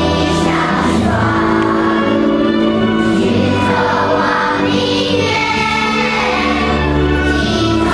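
Children's choir singing in Mandarin, many voices together on long held notes, over a sustained low accompaniment.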